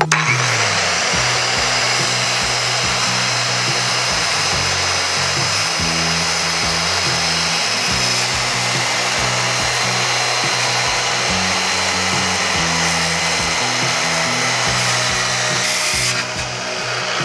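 Corded electric circular saw running and crosscutting a clamped wooden board, a steady loud cutting noise. The saw's sound drops away about sixteen seconds in as the cut ends.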